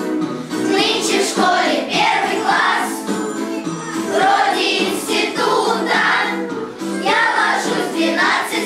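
Children singing together as a choir, with musical accompaniment.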